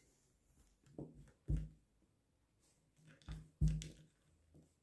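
A few soft knocks and taps, about five, the loudest about one and a half seconds in and again near four seconds in: handling noise of a clamp meter's test leads being set against a laptop power adapter.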